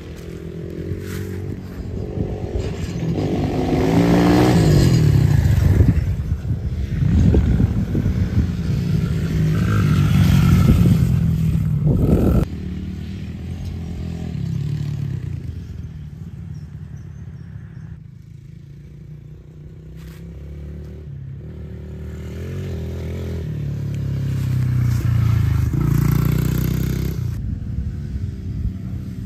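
Dirt bike engines revving as the bikes ride by, the pitch rising and falling as the throttle opens and closes. The sound drops away abruptly about twelve seconds in, then builds again toward the end as another bike draws near.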